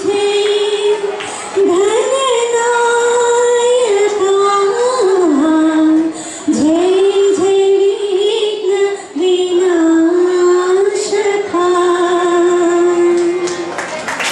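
A girl singing a slow song solo through a microphone, holding long notes that slide and turn between pitches, over a harmonium accompaniment.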